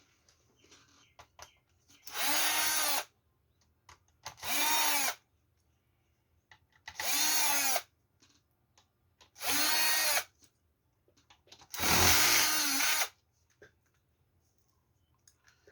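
Electric screwdriver backing out five screws from a TV power supply board, one short whir per screw. Each whir lasts about a second and rises in pitch as the motor spins up, then falls as it stops. The fifth and last whir is slightly longer and louder.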